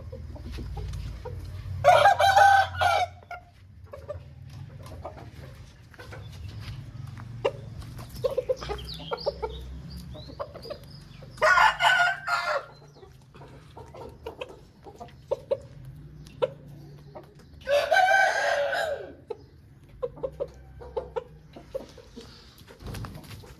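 Aseel roosters crowing three times, each crow short and loud, with chickens clucking in the gaps between crows.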